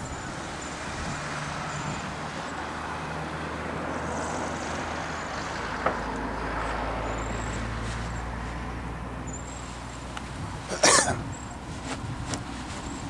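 Wind buffeting the microphone, a steady rushing noise with low rumble, with one short loud burst of noise about eleven seconds in.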